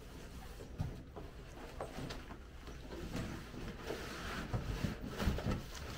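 Large cardboard shipping box being lifted and handled: scattered knocks, scrapes and rustling, busiest near the end.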